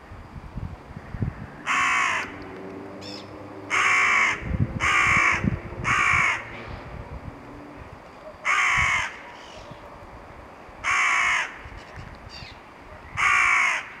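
A crow cawing seven times: harsh, half-second caws at irregular gaps, three of them in quick succession in the middle.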